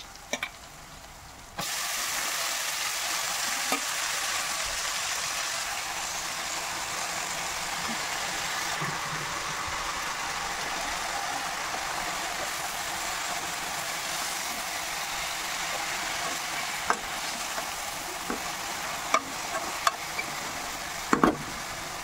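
Wet fenugreek leaves and split lentils sizzling loudly in hot oil in a pan. The sizzle starts suddenly about a second and a half in as the greens hit the pan, then runs steadily while a spatula stirs, with a few sharp scrapes and knocks against the pan near the end.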